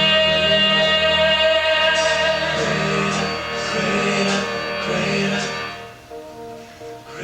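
Music with singing and instruments, ending on a long held chord that dies away about six seconds in.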